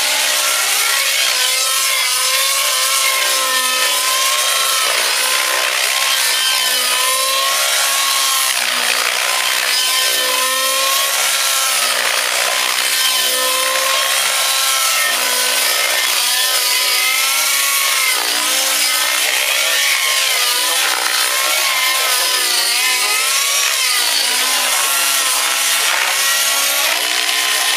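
Align T-Rex 700 radio-controlled helicopter flying 3D aerobatics, a loud machine whine that keeps rising and falling in pitch as it throws the model through its manoeuvres.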